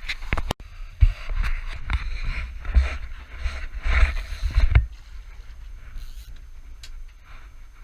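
Water sloshing and splashing around a small boat at sea, with wind rumbling on the microphone. It comes in irregular louder surges for about five seconds, then settles quieter.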